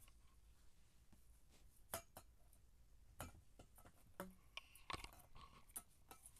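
Faint, scattered light taps and ticks against near silence: small kittens moving and pawing about close to the camera.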